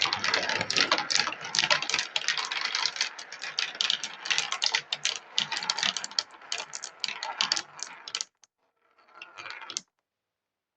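Many 16 mm marbles rolling and clacking together down a marble run track, a dense rattle of clicks that stops abruptly about eight seconds in, with a short fainter clatter about a second later.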